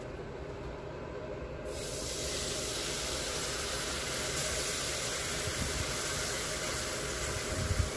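Meat juices poured from a glass baking dish into a hot frying pan of flour and fat, sizzling with a steady hiss that starts suddenly about two seconds in.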